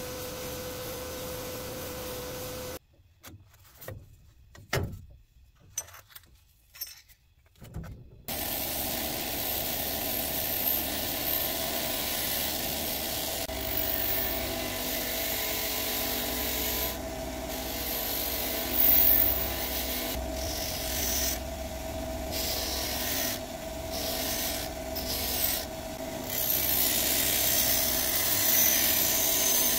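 Sandblast cabinet hissing steadily for about three seconds, then a quieter stretch with a few knocks. From about eight seconds in, a bench grinder's wire wheel runs with a steady hum while metal stove parts are pressed against it and scrubbed, louder near the end.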